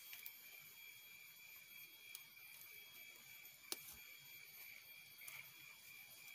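Near silence: a faint steady high whine, with a few faint clicks, the sharpest about four seconds in.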